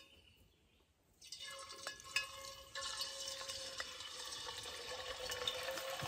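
Lard sizzling as it melts in hot fat in a cast iron pot. The faint hiss starts about a second in and turns steadier and louder about three seconds in, with scattered small pops.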